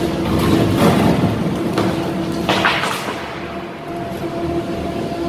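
Excavator-mounted demolition shear crushing a reinforced concrete floor slab: concrete cracking and crumbling over the steady hum of the carrier machine, with a sharper crunch about two and a half seconds in.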